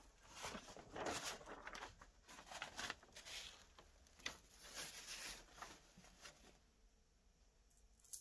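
Faint rustling and crinkling of a Teflon pressing sheet as it is handled and lifted off, in quick irregular bursts that die down about six seconds in.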